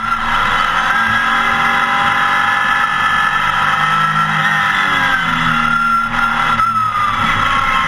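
Porsche 914 race car's engine at speed, heard loud and somewhat distorted from inside the cockpit. Its pitch rises and falls, with a short break around six seconds in.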